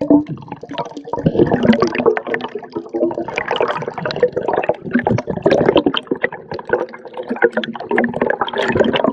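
Water splashing and bubbling in irregular bursts.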